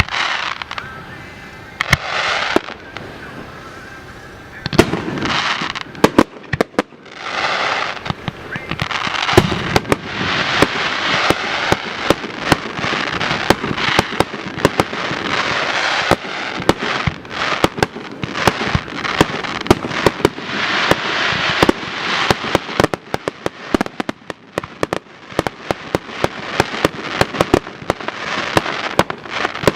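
Fireworks display going off: frequent sharp bangs over hissing, crackling bursts, thickening into a dense, nearly continuous crackle from about ten seconds in.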